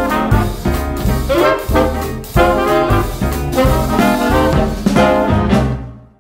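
Upbeat swing-style background music with brass and a steady beat, fading out over the last second.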